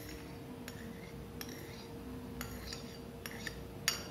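A spoon scraping and clicking against a plate and a glass bowl as soft aloe vera gel is scraped off. A few light clicks are spread out, with the loudest pair near the end.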